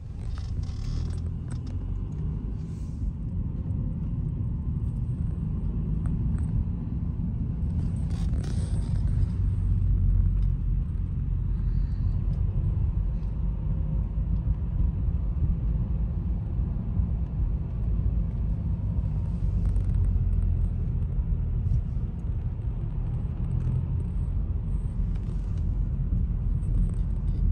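Low, steady rumble of a car driving through city traffic, heard from inside the cabin: engine and tyre noise, with a few light clicks here and there.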